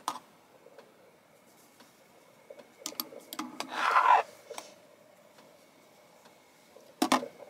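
Metal spoon clinking and scraping against a milk-frothing jug and a coffee cup while frothed milk is spooned out: scattered light clicks, a short scraping sound about four seconds in, and a quick cluster of sharper clinks near the end.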